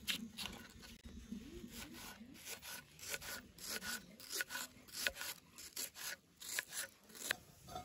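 Kitchen knife slicing peeled onions on a wooden chopping board: a run of crisp cuts, about two a second, each stroke ending in a knock of the blade on the wood.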